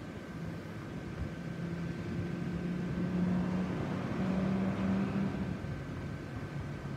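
Electric blower fans of inflatable lawn decorations running, a steady whirring hum with a thin steady whine above it. A deeper hum grows louder and shifts up in pitch partway through, then eases off.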